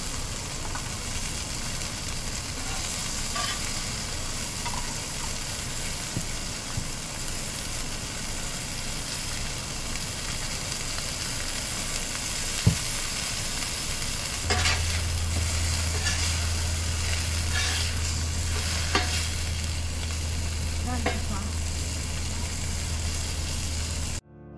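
Burger patties sizzling on a hot portable griddle, with a metal spatula scraping and tapping on the cooking surface several times in the second half. A low steady hum comes in about halfway through.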